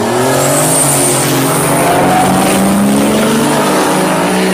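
Diesel school bus engines at full throttle in a drag race, the engine pitch climbing as the buses accelerate down the strip.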